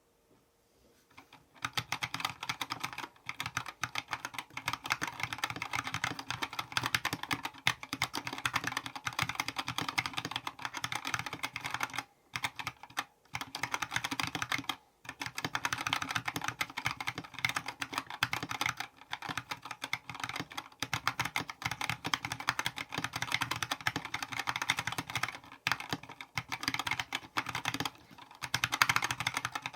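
Mechanical keyboard being typed on fast and continuously, a dense run of key clacks that starts about a second and a half in, with a few short pauses.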